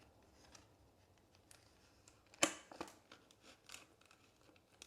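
Faint small clicks and scrapes of thin plastic being handled, with one sharper click about two and a half seconds in. The source is a sleeved trading card being slid into a semi-rigid Card Saver holder.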